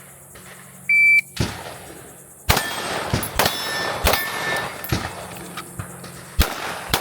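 A shot timer gives one short electronic beep. Then a 9mm pistol fires a string of about six shots, roughly a second apart, and some hits ring on steel targets.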